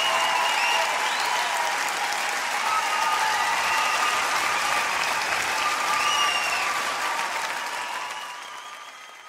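Large concert audience applauding and cheering, the sound fading out over the last couple of seconds.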